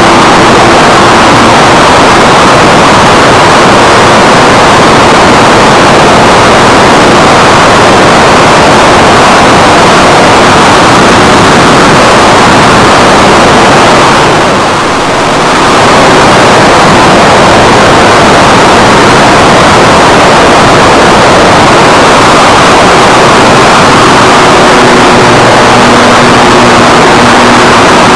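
Air rushing past an RC model plane in flight, with its motor and propeller running, heard through the plane's onboard camera microphone: a loud, overdriven hiss with faint steady tones underneath. The noise eases briefly about halfway through.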